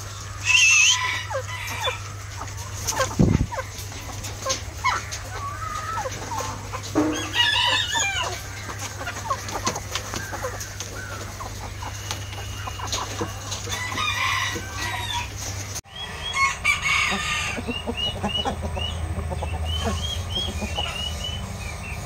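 Aseel chickens calling in a pen: roosters crowing a few times and birds clucking. After about 16 s, a run of short, high, repeated chirps.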